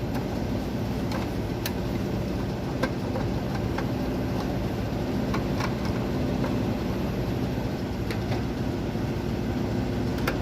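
Scattered light clicks and taps of a screwdriver and metal parts as the swollen fan-motor run capacitor is unscrewed and taken out of an air conditioner outdoor unit, over a steady machine hum.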